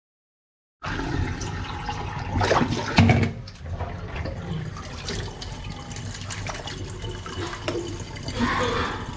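Water running and splashing in a stainless steel kitchen sink, starting about a second in, with a couple of louder knocks around two to three seconds in.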